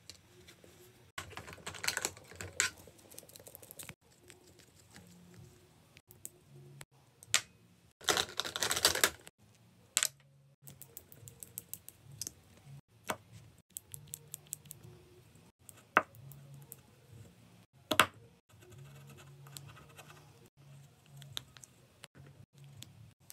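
Plastic cosmetics being handled: light clicks and clattering of plastic cases, caps and bottles against an acrylic makeup organizer, with two longer rattling stretches and several sharp single clicks.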